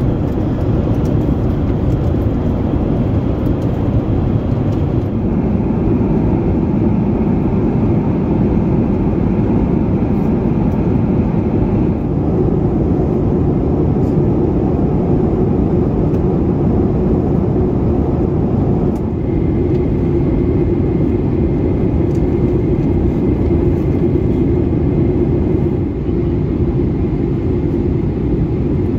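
Steady cabin drone of a Boeing 737 MAX 9 in flight, heard from a window seat: airflow over the fuselage mixed with engine noise, during the descent. The noise changes tone slightly a few times.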